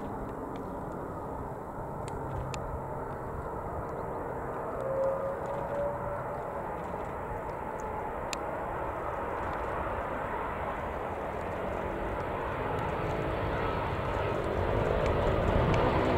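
Airbus Voyager KC.2 (A330 MRTT) jet airliner on approach, its Rolls-Royce Trent 700 turbofans a steady rumble that grows louder as the aircraft nears.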